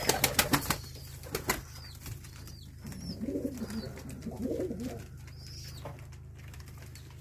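Domestic tumbler pigeons cooing in a small loft, two low wavering coos about three and four and a half seconds in. It opens with a quick rapid clatter of clicks and has a few faint high chirps, over a steady low hum.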